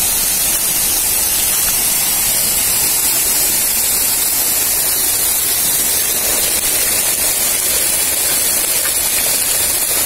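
Loud, steady rush of splashing falling water.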